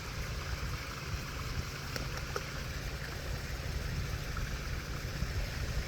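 Backyard koi pond's waterfall running steadily, a continuous rush of splashing water.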